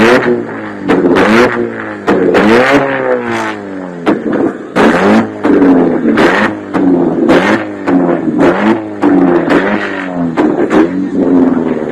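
Modified car engine revved over and over in quick blips, its pitch rising and falling, with repeated loud sharp bangs from the exhaust as a flamethrower kit fires.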